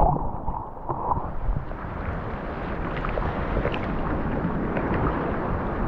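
Steady rushing noise of sea water and wind on the microphone, with a few faint ticks.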